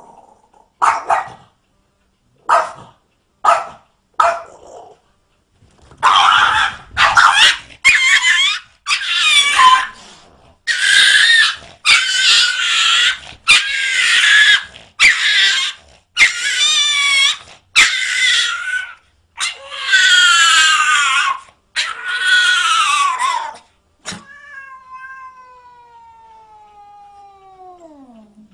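Cat yowling: a few short calls, then about a dozen long, loud, wavering yowls one after another. Near the end comes a fainter long sound gliding steadily down in pitch.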